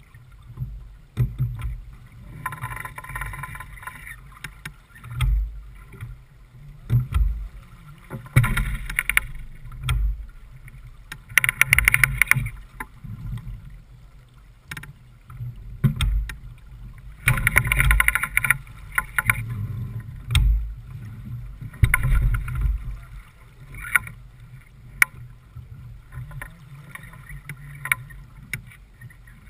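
Water rushing and splashing along the hull of a J/24 sailboat running under spinnaker, coming in surges every few seconds over a steady low rumble of wind buffeting the microphone.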